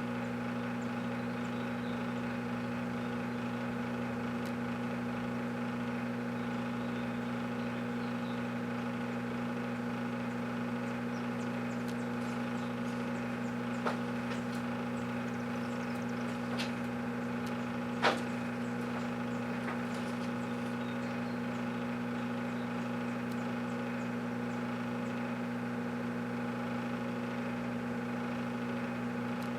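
Microwave oven running with a steady electrical hum, heating a whole watermelon. A few short sharp pops break through, the loudest about eighteen seconds in.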